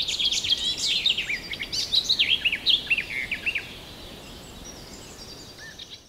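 A small bird singing a fast twittering song of high, quick up-and-down chirps. It grows quieter after about three and a half seconds and fades out at the end.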